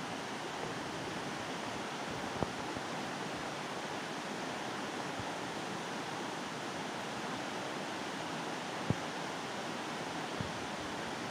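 A steady rushing hiss, with a few brief soft knocks, the clearest about nine seconds in.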